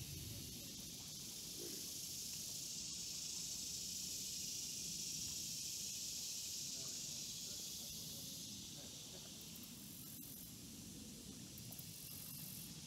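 A steady high hiss of outdoor ambience that swells for a few seconds and then eases off, over a faint low rustle.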